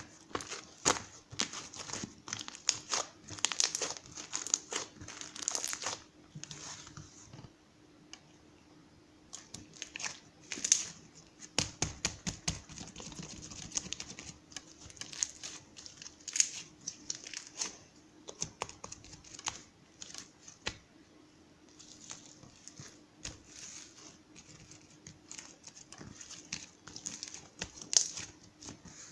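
Irregular crinkling, rustling and clicking handling noises close to the microphone, coming in dense clusters with a quieter pause about eight seconds in, over a faint steady hum.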